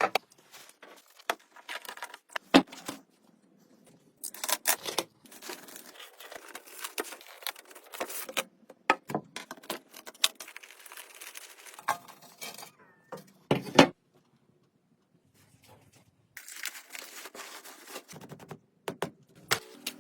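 Irregular handling noises: scattered sharp clicks and knocks mixed with crinkling, rustling scrapes, with a few short pauses.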